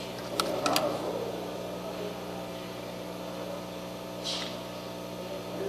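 Steady electrical hum of workbench equipment, with a few light clicks about half a second in and a brief hiss about four seconds in.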